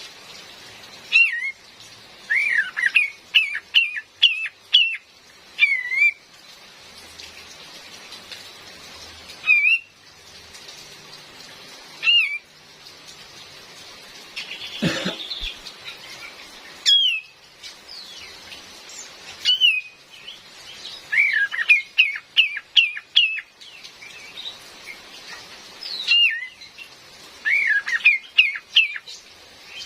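Female kapas tembak, a bulbul, calling in bouts of short bent whistles and quick rattling runs of notes every few seconds, over the steady hiss of rain. A single sharp knock sounds about halfway through.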